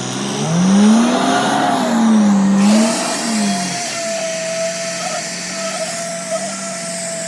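Engine of machinery on a concrete pour revving up and down twice, then settling to a steady run with a constant high whine.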